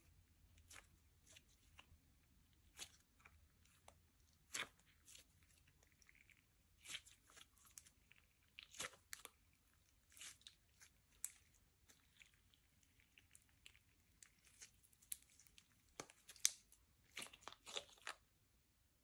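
Slime being mixed and squished by hand: quiet, irregular sticky pops and crackles as air pockets in the slime burst, bunching together near the end.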